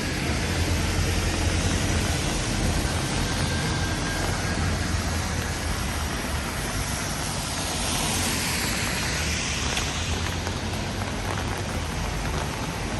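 Steady city street noise on a rain-wet road, with a low rumble throughout. A vehicle passes close about eight seconds in, its tyre hiss swelling and fading.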